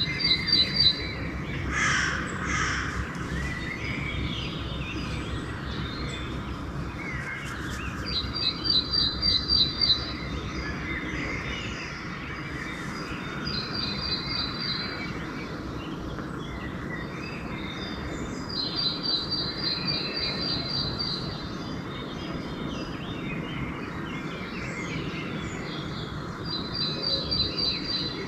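Dawn bird chorus: crows cawing among songbirds. A high, rapid trill repeats every few seconds over a steady low background rumble.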